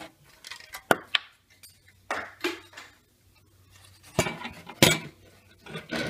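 A series of sharp clicks and knocks with short rustling clatter as a motherboard is handled and turned over on a table, with a louder group of knocks about four to five seconds in.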